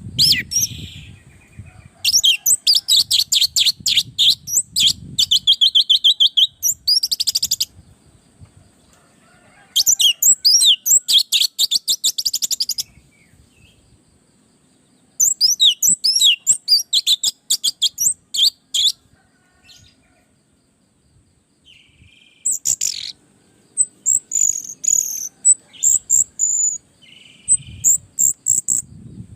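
Orange-headed thrush singing in bursts of rapid, high chirping phrases, four runs of a few seconds each with short pauses between.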